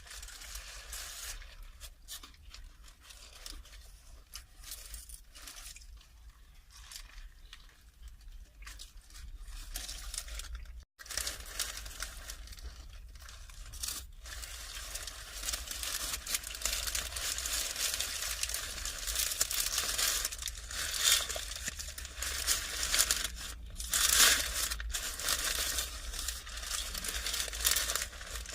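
Wrapping from a takeaway wrap being crumpled and torn, with irregular crackling bursts that get louder and busier in the second half, and a brief cut-out about eleven seconds in.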